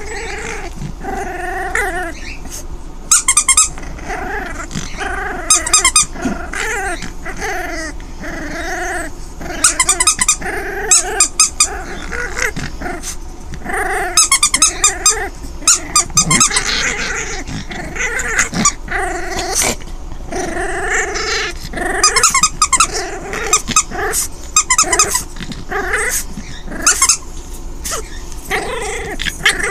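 A five-week-old puppy growling over and over as it bites and tugs at a stuffed toy. Short high-pitched squeaks come in every few seconds.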